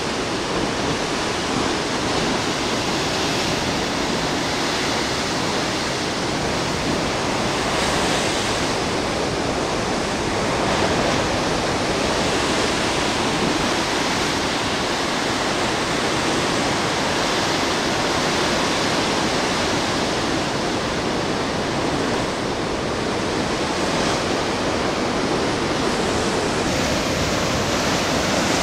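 Heavy ocean surf surging and breaking in a narrow rocky inlet: a steady, dense rush of churning white water that swells slightly now and then as waves crash against the rock walls.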